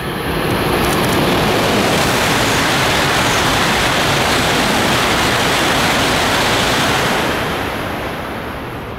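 A coupled E6-series Komachi and E5-series Hayabusa Shinkansen passing through the station at speed without stopping. A loud, even rushing noise that rises at the start, holds for about seven seconds, then fades away near the end.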